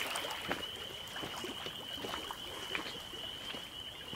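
Footsteps on loose beach stones, as irregular scattered clicks, over small waves lapping at a rocky lakeshore. A steady high trill runs underneath.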